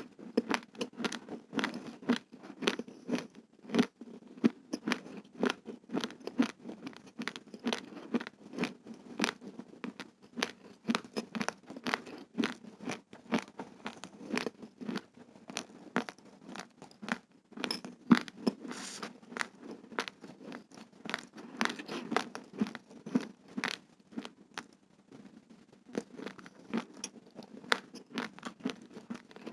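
Raw uncooked rice grains being chewed, a dense run of sharp crunching cracks, several a second, with a brief lull about 25 seconds in.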